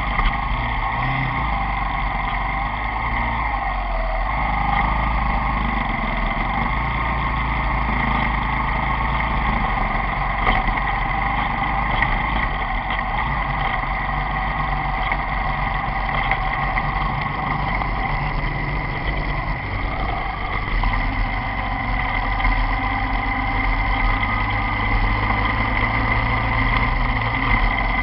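Motorcycle riding along a highway: the engine running steadily under continuous road and wind rumble on an action camera's microphone, its pitch wavering a little in the first few seconds.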